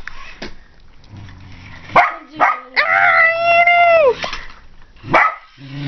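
A dog barking about two seconds in, then giving one long, high howl of a little over a second that drops in pitch as it ends, and barking again near the end.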